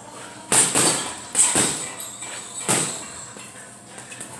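Gloved punches landing on a chain-hung Ringside teardrop heavy bag: two quick pairs of punches in the first second and a half, then a single punch a little later.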